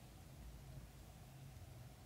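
Near silence: faint room tone with a soft, uneven low rumble.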